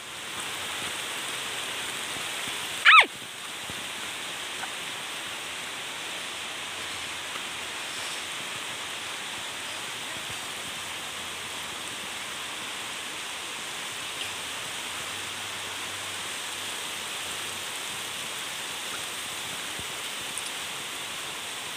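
Heavy rain falling steadily, an even hiss. A single short, loud call breaks through about three seconds in.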